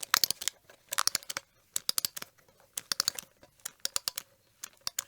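Cartoon sound effect: a run of short, dry clicks and crackles in small clusters of two to four, coming about once a second.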